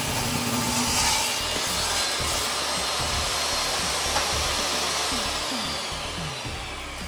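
Jobsite table saw running as a small wood block is pushed through the blade on a rip cut; its whine slowly fades near the end.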